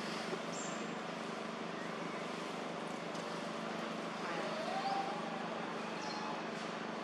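Steady outdoor background noise with a low hum under it and a few faint high chirps; about four and a half seconds in, one short call rises and falls in pitch.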